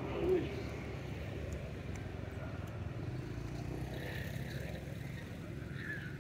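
A motor vehicle engine running steadily at a distance as a low rumble, with a short thump about a third of a second in.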